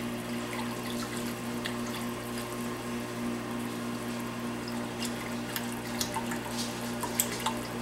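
Kitchen dishwasher running: a steady hum with an even pulsing throb and water swishing. A wire whisk stirs milk in an enameled cast-iron pot, with a few light clicks near the end.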